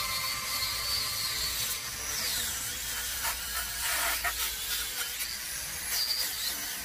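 Small angle grinder with a wire wheel running against the dry deadwood of a Japanese apricot (plum) tree, stripping and carving it: a steady high hiss and wavering whine, with a few sharper scrapes as the wheel bites into the wood.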